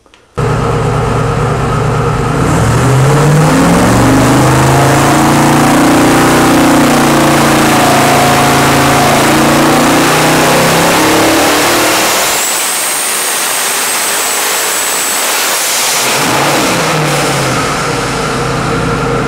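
Twin-turbocharged 454 cubic-inch LS V8 running, starting abruptly and revving up a couple of seconds in, then holding high revs. Around twelve seconds the low engine note drops away and a high, nearly steady whistle holds for about three seconds, before the engine revs up and down again.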